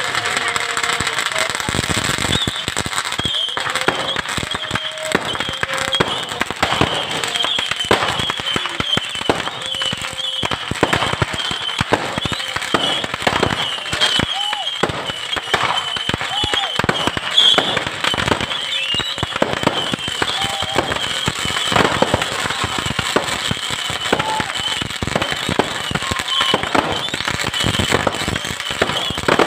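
Fireworks and firecrackers going off without a break, a dense rapid string of bangs and crackles, with voices faintly underneath.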